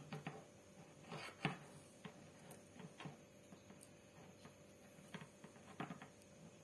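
Faint, scattered small clicks and rubbing as the twisted pairs of a Cat 6 UTP network cable are separated by hand, one pair at a time.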